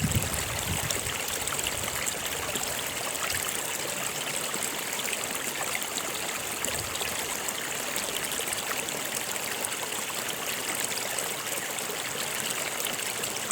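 A stream running steadily, its water trickling and splashing over rocks.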